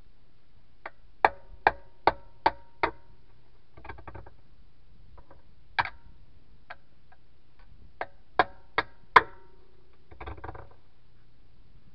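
Hammer striking a steel tire iron, each blow ringing. There is a quick run of about six blows, then a single blow, then a run of four, with a short scraping rustle in between. It is the sound of driving the iron in to pry a tractor tire's bead off the rim.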